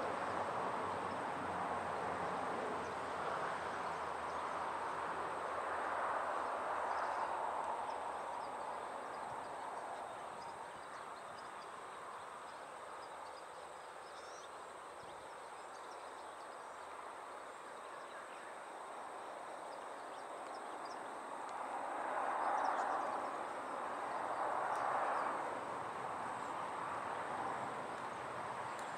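Outdoor wind rushing, a steady hiss that swells in gusts about six seconds in and twice near the end, easing off in between.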